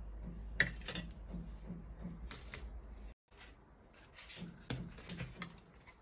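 Light clicks, taps and rustles of hands handling a bare LCD panel and its metal mounting frame on a tabletop, with a brief break in the sound a little after three seconds.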